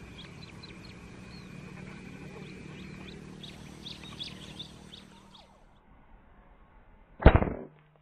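Small birds chirping over and over in the rice, then about seven seconds in a single sharp, loud crack of an air rifle shot.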